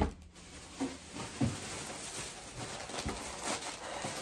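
Thin plastic bag rustling as items are handled, with a few soft knocks.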